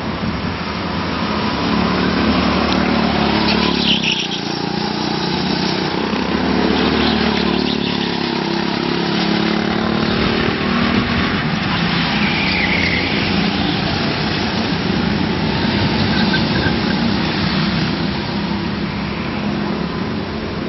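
Go-kart engines running on the track, the engine pitch rising and falling as the karts speed up and slow down through the corners.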